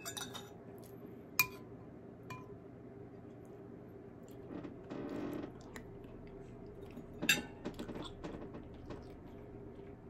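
A metal spoon clinking against a soup bowl, with sharp clinks that ring briefly about a second in and again about seven seconds in, and a short sip of chicken soup from the spoon around halfway.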